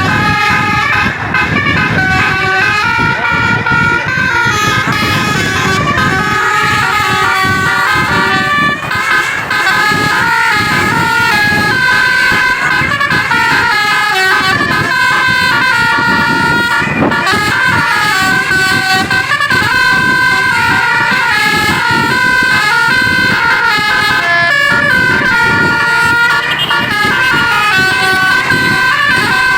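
A basuri telolet multi-tone air horn on the QQ Trans bus 'The Voltron' playing a long melody of stepped notes, over the bus's engine and road noise.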